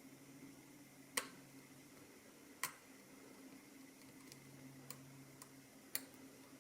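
Lock pick clicking against the pins inside a Mul-T-Lock MT5+ pin-in-pin cylinder: a few sharp, separate clicks, three louder than the rest, over a faint steady hum. The lock is held in a false set while the picker searches for an unset inner pin.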